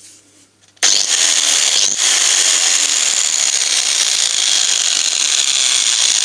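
A Bosch GWS660 angle grinder switched on about a second in and running at full speed, with the gear noise loudest and a brief dip about two seconds in. The owner suspects worn carbon brushes, which give it a poppy sound at switch-on.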